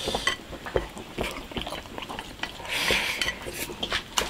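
Chopsticks clicking and scraping against a rice bowl and the pot while eating, with chewing in between.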